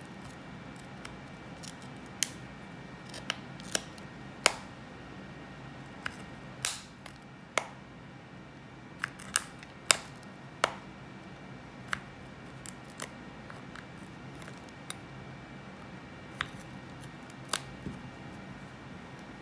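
Irregular sharp clicks and ticks, about one a second, of a metal spudger prying at the seam between an iPod Classic's front case and metal rear plate, working the case clips loose.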